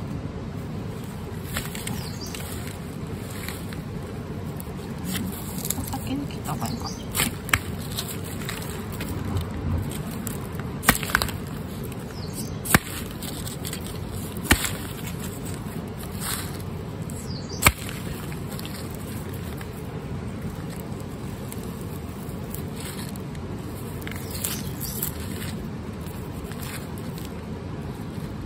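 A knife cutting the dry roots off fresh garlic bulbs, along with the handling of their papery skins: scattered crisp snaps and clicks among short rustles, over steady background noise.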